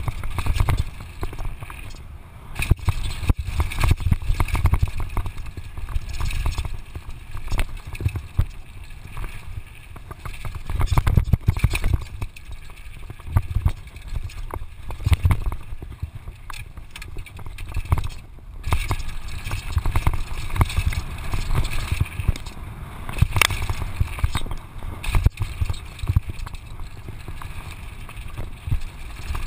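Downhill mountain bike riding fast over rough dirt and rock, heard from a camera mounted on the bike: wind rumble on the microphone that swells and falls in surges, with constant rattling and sharp knocks from the bike and tyres over the ground.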